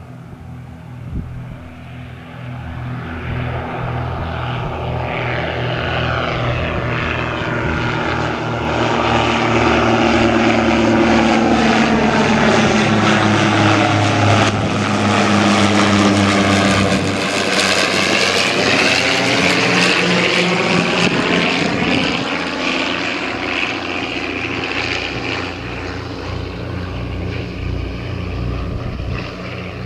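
de Havilland Dragon Rapide biplane's two propeller engines droning in a low fly-past. The drone builds as it approaches and is loudest as it passes overhead about halfway through, with the engine pitch dropping as it goes by. It then runs on a little quieter as the plane banks away.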